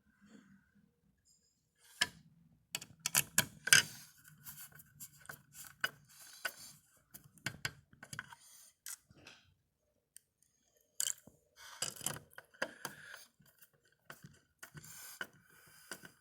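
Irregular clicks and scrapes of small screws being driven by hand with a magnetic screwdriver to mount a circuit board, with the board and parts being handled, pausing briefly partway through.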